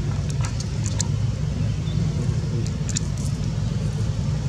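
Steady low rumble with a few faint, brief high-pitched ticks scattered through it.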